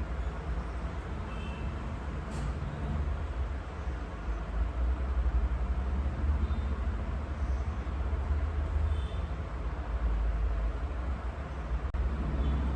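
Steady low background rumble with a few faint, brief high tones scattered through it.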